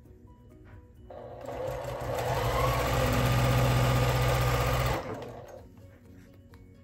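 Electric domestic sewing machine stitching a seam. It starts about a second in, speeds up to a steady fast run and stops abruptly about five seconds in, with soft background music underneath and a sharp click at the very end.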